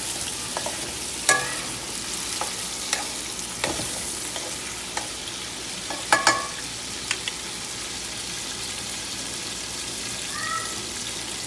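Chicken pieces and green and red chillies sizzling in hot oil in a metal karahi, frying until the chicken turns white. A spatula stirring through them knocks sharply against the pan several times, one knock ringing briefly.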